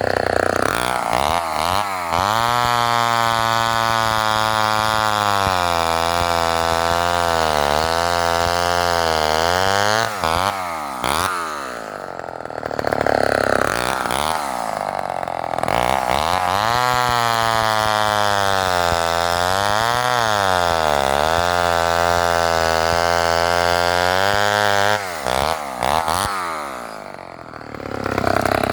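Homelite XL-12 two-stroke chainsaw with a 20-inch bow bar making two long cuts. Each time it revs up, then drops to a lower, wavering pitch under load for about eight seconds before revving free again. Near the end it falls back briefly toward idle.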